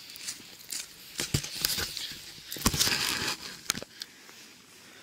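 Camera handling noise as it is set down on a forest floor of dry pine needles and twigs: irregular scraping, rustling and crackling, busiest around the middle, then settling about four seconds in.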